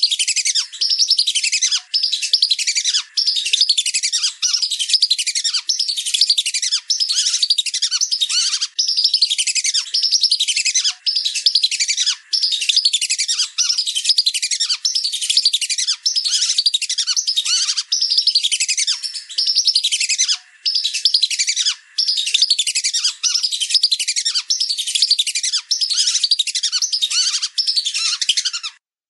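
Lesser whistling ducks (belibis) calling: a rapid, unbroken stream of high whistled calls, each falling in pitch, running in bursts of a second or two with brief pauses between.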